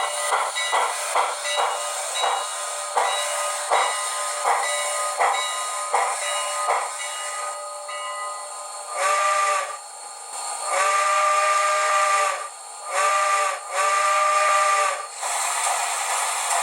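TCS WOW Sound steam locomotive decoder: exhaust chuffs at about two a second, slowing, then the whistle blown long, long, short, long, the grade-crossing signal. A hiss of steam follows near the end.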